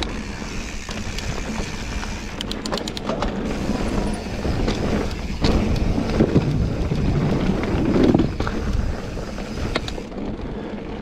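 Mountain bike rolling over a pebble-surfaced trail: steady tyre rumble on the stones with scattered clicks and knocks from the bike over bumps, louder in the middle, and wind on the microphone.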